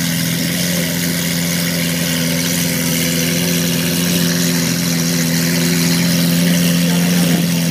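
Lamborghini Aventador's V12 engine idling steadily.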